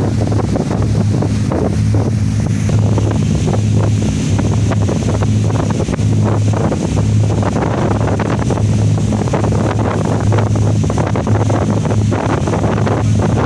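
A boat's engine running steadily with a low, even hum, mixed with wind buffeting the microphone.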